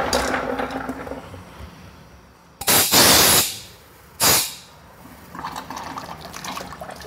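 Water rushing out of the Kranzle pressure washer's hose line in two short, loud bursts: the first about a second long, the second briefer.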